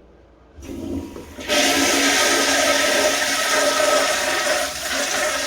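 Toilet flushing: a low start that swells into a loud, steady rush of water about a second and a half in. It is the test flush after the blockage was cleared and the trap found clear.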